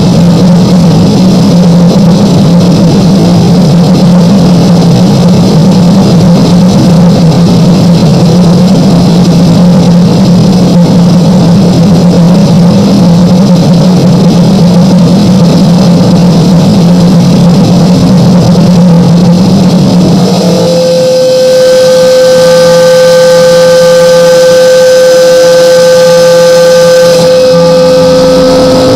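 Harsh noise music: a loud, unbroken wall of distorted electronic noise over a heavy low drone. About twenty seconds in the drone drops away and a steady held tone with a few higher tones sits over the noise, and the low drone returns right at the end.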